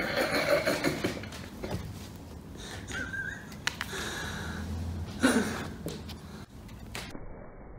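A cat scrambling in a small plastic toy football goal and its string net on a fabric sofa: bursts of rustling and scuffling, loudest at the start and again about five seconds in, with a few light knocks.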